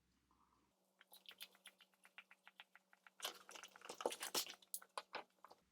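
Close-up eating noises of a person chewing chicken nuggets: a quick run of small wet mouth clicks, then a denser burst of clicks and crackles about three seconds in.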